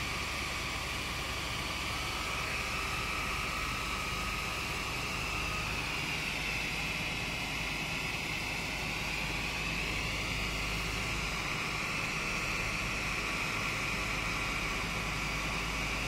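A mini Sinotruk fire truck running: a steady low engine rumble under a loud, slowly wavering hiss.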